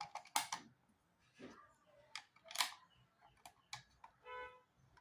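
Sharp plastic clicks and knocks as a 16 A switch-and-socket plate is pushed and fitted onto its electrical box, about five separate strokes. A short pitched note sounds near the end.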